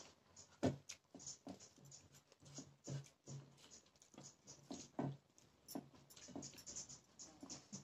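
A person eating with mouth sounds close to the microphone: irregular chewing, lip smacks and clicks, several a second.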